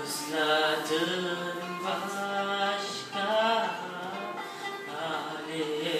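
A teenage boy singing into a microphone, with long held notes that bend and waver in pitch.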